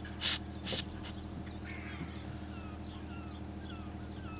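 Two short hisses of an aerosol can of drilling and machining lubricant being sprayed, over a steady low hum. From about halfway a bird calls in a quick series of short falling notes, about two or three a second.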